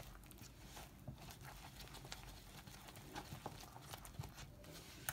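Wooden spoon stirring thick banana cake batter by hand in a plastic tub: faint, irregular scraping and soft knocks of the spoon against the tub.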